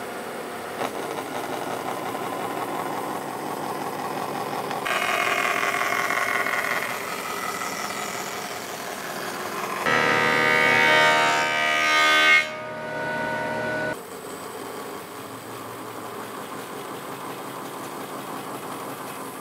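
Woodworking machines milling lumber: a bandsaw running and cutting through a board, with the sound changing abruptly several times. About ten seconds in a wood-planing machine takes over, the loudest part, with a high steady whine, before the bandsaw runs again.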